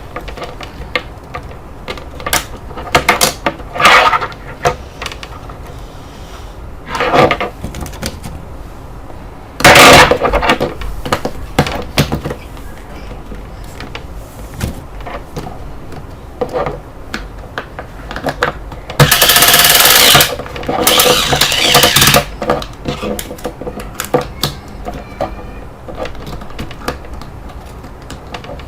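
Close-up handling of a toy and its packaging: scattered plastic clicks, taps and rattles, with three loud rustling bursts, one about a third of the way in and two in a row about two-thirds of the way in.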